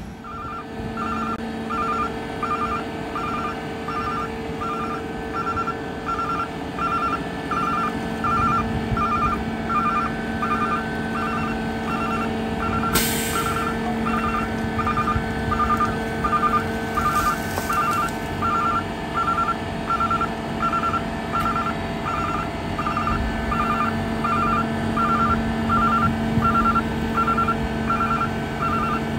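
McNeilus rear-loader garbage truck on a Mack Granite chassis running its engine at raised revs to power the hydraulics while the tailgate is up and the load is ejected, with a warning beeper sounding about once a second throughout. A short hiss comes about thirteen seconds in.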